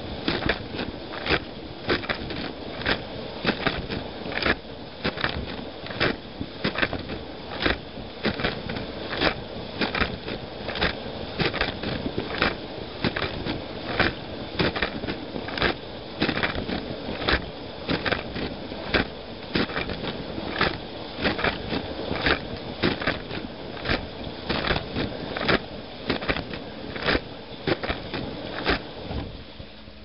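Inside a running dishwasher: water from the spray arms pelts the tub and racks in rapid, irregular splashing hits, about one and a half to two a second, over a steady wash of noise. The spraying stops abruptly just before the end, leaving a quieter steady hum.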